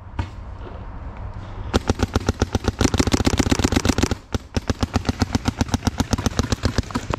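Electronic paintball marker firing rapid strings of shots, about ten a second, starting about two seconds in, breaking off briefly and then firing again.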